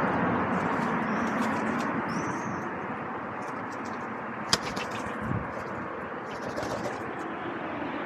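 Steady hum of distant town traffic, with two short high bird chirps in the first half. There is a sharp click about halfway through and a few lighter ticks after it, with pigeons moving about on the railing.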